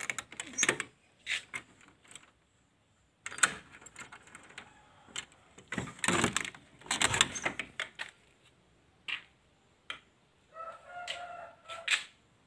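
Wooden storeroom door being handled and pushed open: a run of knocks, rattles and scrapes, loudest in the middle. Near the end a rooster crows once.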